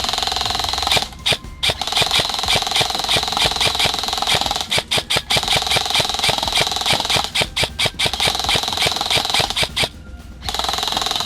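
Airsoft electric guns firing full-auto in long bursts of rapid shots for suppressive fire, pausing briefly about a second in, near the middle, and near the end.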